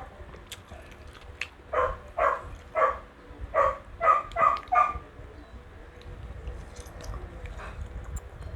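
A dog barking: a quick run of about seven short barks, starting about two seconds in and stopping about five seconds in.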